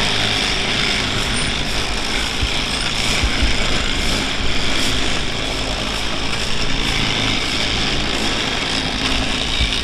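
Small engine-powered track-maintenance machinery running steadily: a constant mechanical noise with a low rumble and light, irregular ticks.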